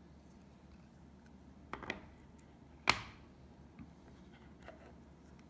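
Hard plastic NGC coin holders (slabs) being handled on a table: a couple of light clicks, then one sharp clack about three seconds in, then a few faint taps.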